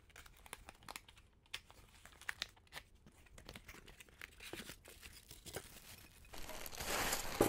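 Cardboard shipping box being torn open: scattered small crackles and tearing of tape and cardboard. About six seconds in comes a louder, longer crinkling of the plastic wrapping as the packed baker is pulled out.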